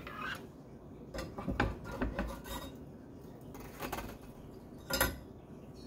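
Scattered light clinks, knocks and scrapes of lab hardware being handled: a clay triangle and crucible being set onto a ring stand's metal ring, with a sharper knock about five seconds in.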